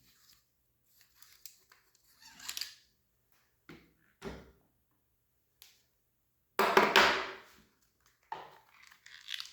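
Parts of a Milsig T17 paintball marker being handled during disassembly: scattered light clicks and knocks, with a louder noisy burst lasting about a second roughly two-thirds of the way in.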